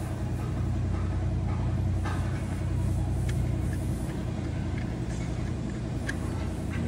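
Steady low mechanical rumble of an engine or motor running, with a few light clicks.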